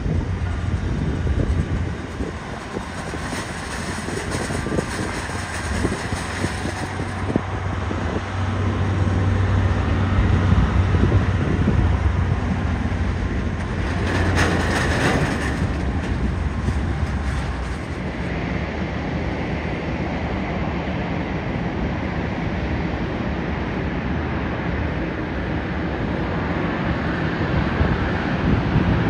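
Jet airliner engines at an airport: a steady low rumble that swells to a louder, brighter roar about halfway through, then settles back.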